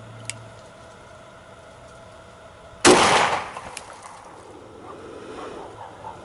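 A single .45 ACP pistol shot from a Ruger SR45 firing 230-grain ball ammunition, about three seconds in, with a short echo trailing off.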